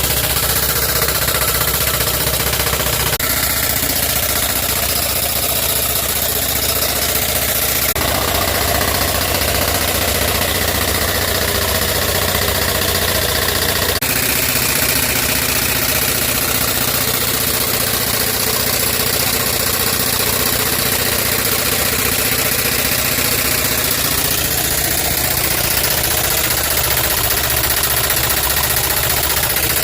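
VersaDrill drill rig running steadily. Its sound changes abruptly a few times as the load or speed shifts.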